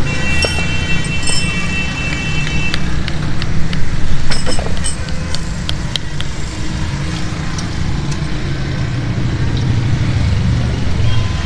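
Road traffic running past as a steady low rumble. A high ringing tone is heard for the first couple of seconds, and a few light clicks follow over the next few seconds.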